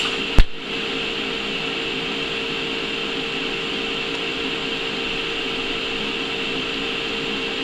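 An Eastwood TIG200 TIG welder striking its arc with one sharp, loud pop about half a second in, then welding on with a steady hum and hiss.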